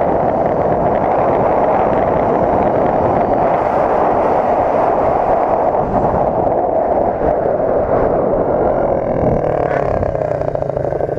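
Wind rushing over a helmet-mounted camera, with a small engine running at speed underneath. Near the end the rush eases and the engine note falls as the vehicle slows.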